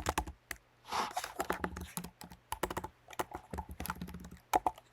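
Typing on a computer keyboard: a run of quick, irregular key clicks, entering a search for "side chaining" in a plugin manual.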